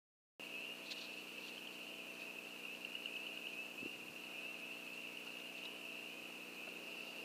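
Steady high-pitched chorus of night insects, a continuous trill, over a faint steady low hum. The audio is cut out for the first half second.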